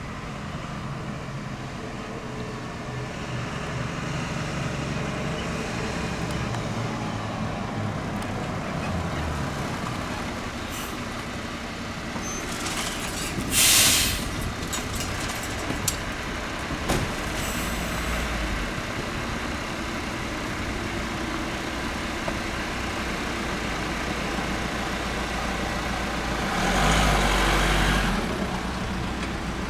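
Fire engine's diesel engine running at idle, with a short sharp hiss of air brakes about halfway through and the engine growing louder near the end.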